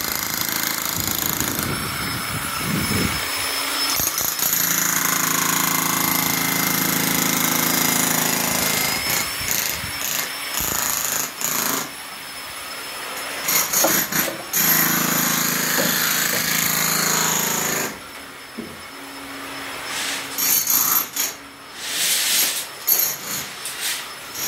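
Corded electric demolition hammer running and chipping into the ground in long, steady stretches. It stops about three quarters of the way through, and irregular bumps and rustles follow.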